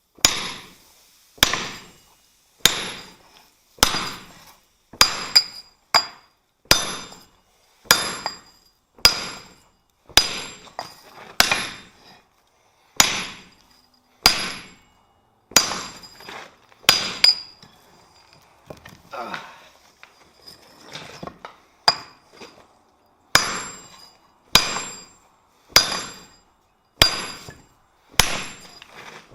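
Heavy hammer blows on hot steel as a thick bent bar is straightened, about one every second and a quarter, each strike with a short metallic ring. About two-thirds through the blows stop for a few seconds, leaving softer clatter, then the steady rhythm resumes.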